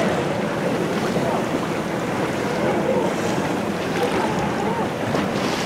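Steady wind buffeting the microphone over choppy sea water, heard from a small boat.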